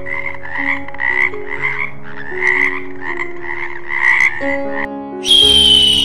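A toad calling: a quick series of croaks, about two or three a second, that stops shortly before the end. Just after it stops, a loud high tone that slowly falls in pitch starts.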